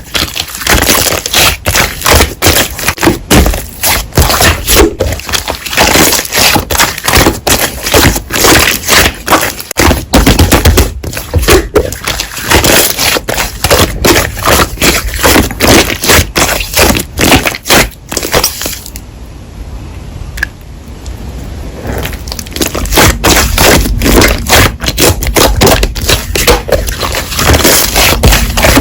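Slime being squished and pressed by hand, with dense, rapid crackling and popping of air pockets. It eases off briefly about two-thirds of the way through.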